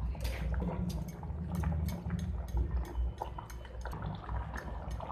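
Thick curry gravy simmering in a pan, its bubbles popping in a steady run of short wet clicks over a low rumble, while a spatula stirs it.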